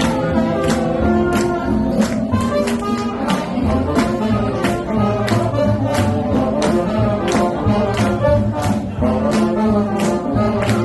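Recorded swing jazz with a brass section playing sustained horn lines over a steady drum beat, about three strikes a second.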